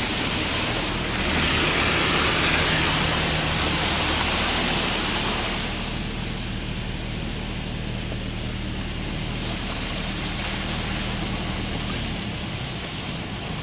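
Touchless car wash spray jets of a Belanger Kondor KL2 doing the medium pressure rinse, heard from inside the car: a loud hiss of water hitting the roof glass and windshield, strongest in the first few seconds and then easing. A steady low hum runs underneath and stops near the end.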